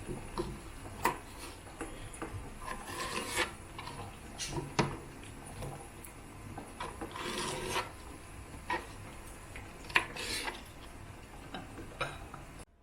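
Rubbing and scraping in short bursts, with scattered sharp clicks and knocks.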